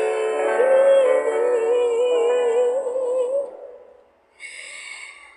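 Female voice holding one long note with wide vibrato over a sustained piano chord, the sound fading out about four seconds in; then a brief faint breathy hiss.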